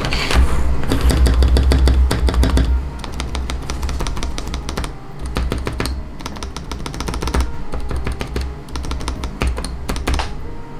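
Stabilized keys on a QK65 custom mechanical keyboard being pressed repeatedly as a stabilizer test: a quick run of key clacks from the lubed stabilizers, over background music.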